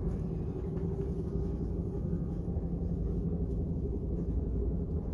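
Steady low rumble of an ICE high-speed train running, heard from inside the passenger carriage, with a faint steady hum in it.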